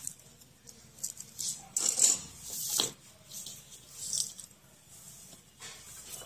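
Wires and a black power cable being handled and shifted across the floor: scattered rustles and light clicks, busiest and loudest about two to three seconds in.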